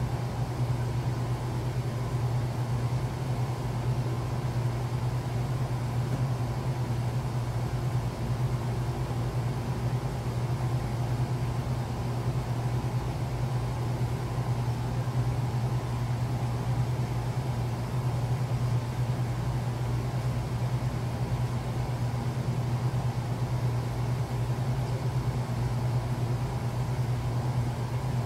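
Steady low hum of a portable air conditioner running, unchanging throughout.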